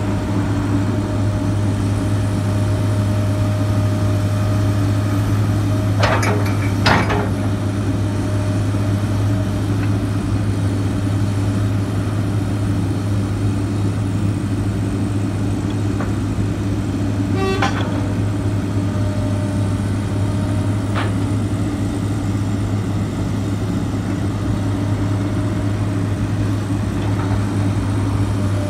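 Komatsu PC210LC excavator's diesel engine running steadily with a low, even hum while the arm is worked. Two sharp metallic clanks come about six and seven seconds in, with a short rattle near the middle and a fainter click later.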